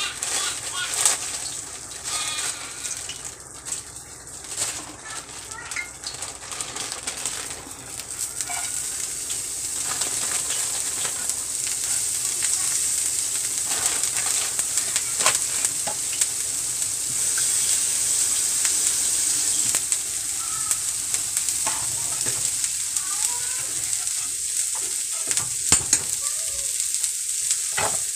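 Hot cooking oil sizzling steadily in a pan on the stove, with scattered sharp pops; the sizzle grows louder about ten seconds in.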